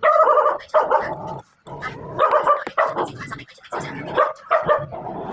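A dog barking repeatedly, about seven barks in quick succession.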